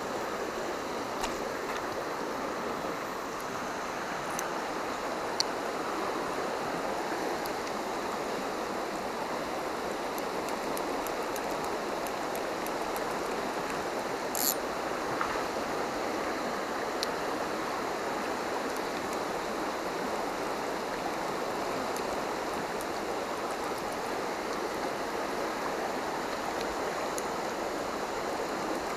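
Shallow muddy river flowing over rocks: a steady rushing of water, with a few faint clicks and one brief hiss about halfway through.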